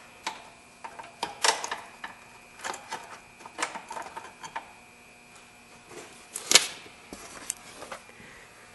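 Irregular light clicks and knocks of a battery hold-down bracket being worked and hooked back under the battery tray, with one sharper knock about six and a half seconds in.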